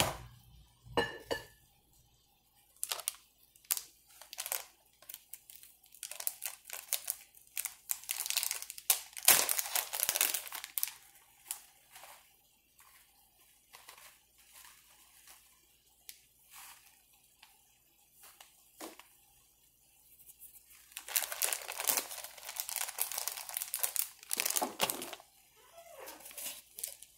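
Plastic food bag crinkling and crackling as it is handled and shaken over a plate, coming on and off in spells.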